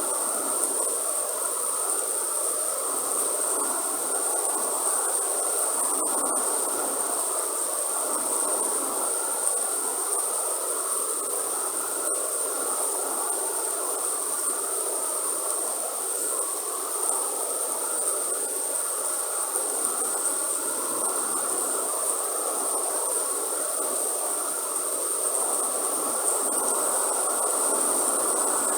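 Steady rain falling in a rainforest, with a constant high-pitched insect drone, like cicadas or crickets, running over it.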